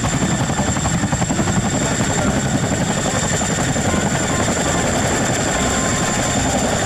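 Boeing CH-47 Chinook tandem-rotor helicopter lifting off and hovering low, its two rotors beating rapidly under a steady high turbine whine.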